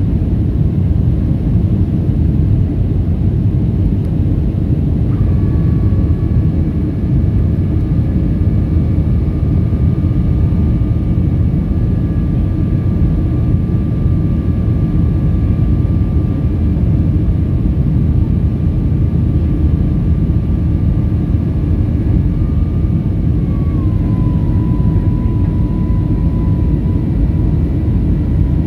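Boeing 737-400's CFM56 jet engines running with a steady, dense rumble. A few thin whining tones come in about five seconds in, and the lowest drops slightly in pitch near the end.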